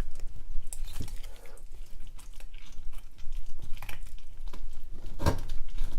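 Knife working at the joint of a roasted chicken leg on a cutting board: soft crackling and small clicks of cutting through skin and meat, with a sharper knock of the blade about five seconds in.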